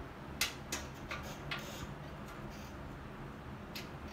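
A few light, sharp clicks of hands handling small fuel-system parts: about four in the first second and a half, then one fainter click near the end.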